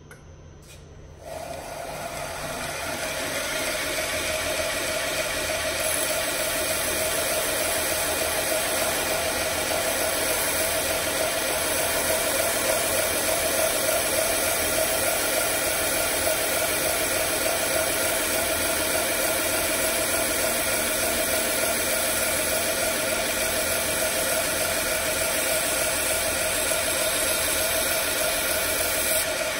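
Belt grinder starting about a second in and spinning up over a couple of seconds, then running steadily with a hiss as a chef's knife blade is finish-ground freehand on a 120-grit belt.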